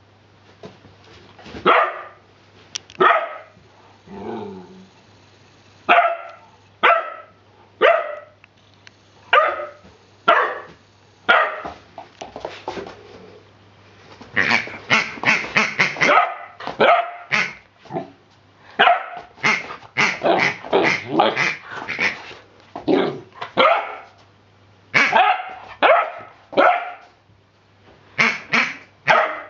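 Rhodesian ridgeback puppy barking over and over in short, sharp barks, with a fast run of barks about halfway through.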